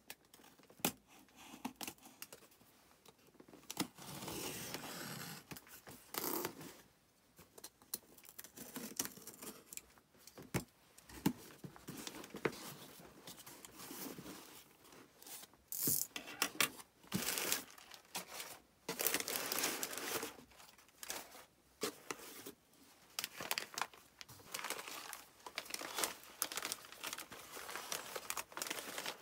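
A cardboard box being opened by hand: packing tape tearing, cardboard flaps rustling and scraping in irregular bursts with sharp clicks. Near the end, newspaper wrapping crinkles as it is unfolded.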